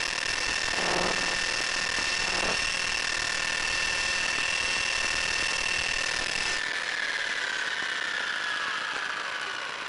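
Electric motor and propeller of an FPV model plane running with a steady high whine, then cut about two-thirds of the way through and spinning down with a falling whine. Two brief low rumbles come early on as the plane bumps over gravel.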